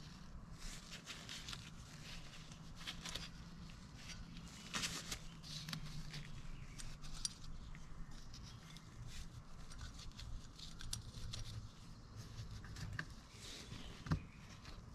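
Faint light clicks and rustling as gloved hands handle small metal clutch parts, setting screws and springs into a Honda CT90 clutch assembly, with a sharper click near the end. A low steady hum lies underneath.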